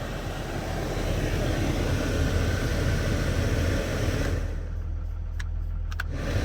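1997 Jeep Grand Cherokee idling steadily, with a few light clicks near the end.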